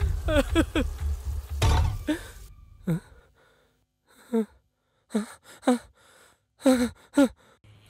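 A man's distressed gasps, sobs and groans: short breathy cries that fall in pitch, crowded together at first, then coming singly about a second apart. A low rumble with a hiss underneath fades out about two seconds in.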